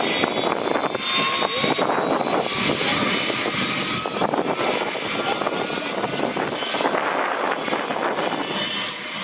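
Eurocopter Tiger attack helicopter on the ground with its rotors turning: its twin MTR390 turboshaft engines give a high whine that rises steadily in pitch over the rushing of the rotor, spooling up for take-off.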